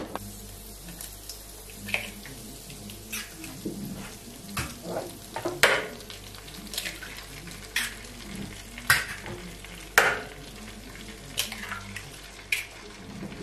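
Butter sizzling steadily in a hot nonstick frying pan as three eggs are cracked and dropped in, with repeated sharp clicks and taps of the eggshells breaking over the pan.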